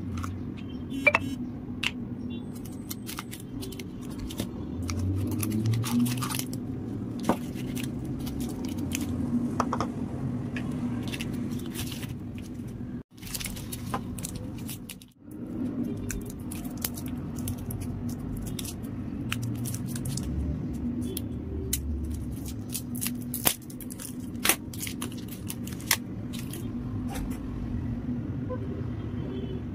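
Cellophane wrappers on sticks of modelling clay crinkling and crackling as the sticks are handled and unwrapped, with scattered light taps of plastic on a wooden table. A steady low hum runs underneath, and the sound drops out briefly twice near the middle.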